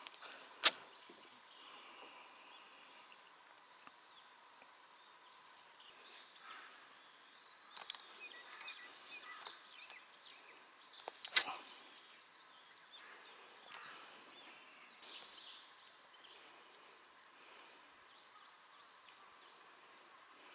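Quiet lakeside ambience with faint bird calls, broken by a few sharp clicks, the loudest about eleven seconds in.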